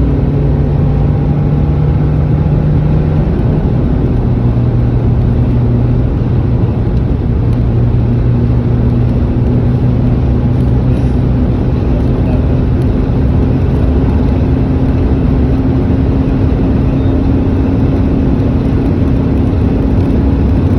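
Car driving, heard from inside the cabin: a steady engine hum over road and tyre noise. The engine note drops about three and a half seconds in, then slowly climbs as the car accelerates.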